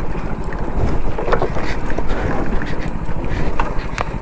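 Hero Splendor 100cc single-cylinder four-stroke motorcycle engine running slowly in low gear as the bike jolts and rattles over a rough, rocky off-road track. Wind buffets the microphone, and a couple of sharp knocks come near the end.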